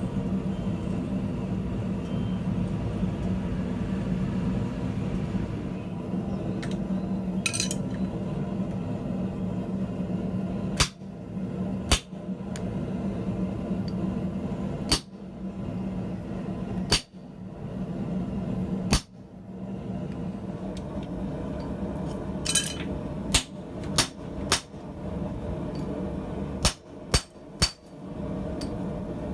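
Blacksmith's hammer striking hot steel on an anvil: scattered single blows, then quick runs of three or four strikes near the end, over a steady low hum.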